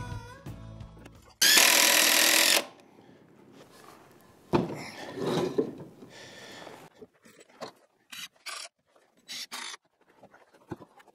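Woodworking on pressure-treated lumber: a loud burst of rough grinding noise lasting about a second as a tool works the wood, then fainter scraping, a few knocks and short clicks.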